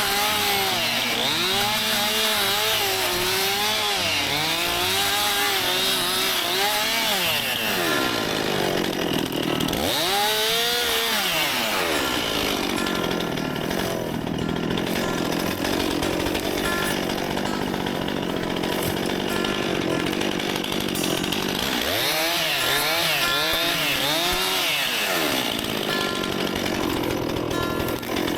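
Stihl MS261 C-M two-stroke chainsaw running with repeated throttle blips, revs rising and falling for the first several seconds. It drops low around eight seconds in, then runs at steady high revs for about ten seconds while cutting wood. Near the end it blips up and down again before holding high revs.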